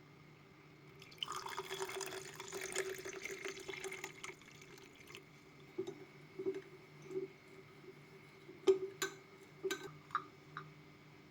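Liquid pouring or splashing into a glass for about three seconds. Then come a few soft knocks and several sharp glassy clinks.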